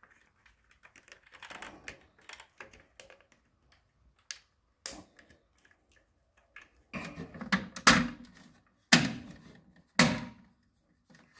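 Handling sounds of a plastic Caroma dual-flush valve: faint clicks and rubbing as a rubber washer is stretched and seated on it, then several louder plastic knocks and clunks in the second half as the valve assembly is fitted back into the cistern.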